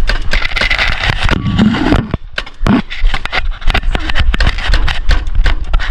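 Clothing rubbing and scraping against the camera microphone, with frequent sharp clicks and knocks from handling.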